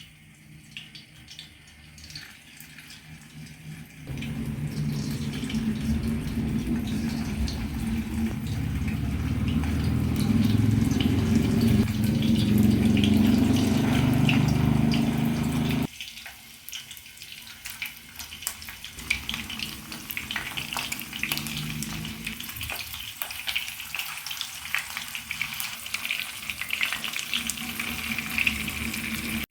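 Kitchen tap running water into a pot, a loud steady rush that stops suddenly about halfway through, followed by food sizzling in a hot pan.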